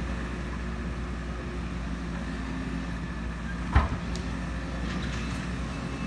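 Excavator's diesel engine running steadily, with one sharp bang a little under four seconds in.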